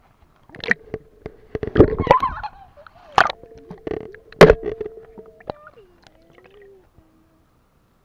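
Pool water sloshing and splashing around a half-submerged action camera, with a series of sharp knocks as a hand and a plastic toy bump the camera. A thin steady tone underneath wavers and drops in pitch about two-thirds of the way through.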